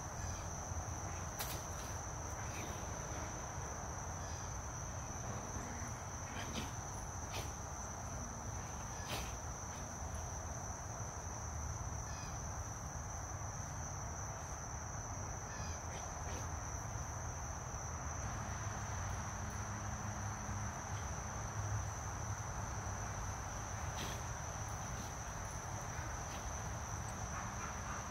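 Crickets chirring in an unbroken high-pitched trill, with a few faint sharp clicks.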